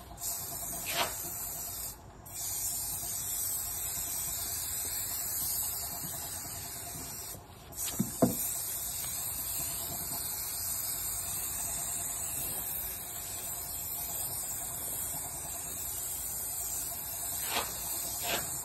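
Hose-fed spray gun hissing steadily as it sprays the pool steps, cutting out briefly twice when the trigger is let go, with a few short clicks.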